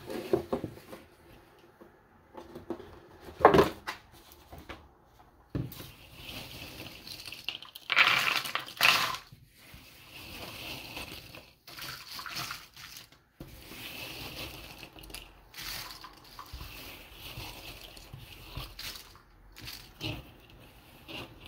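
Cardboard jigsaw puzzle pieces being pushed together across a table, scooped up and dropped into the puzzle box: a dry rustling and clattering in irregular bursts, loudest at about three and a half seconds and again around eight to nine seconds.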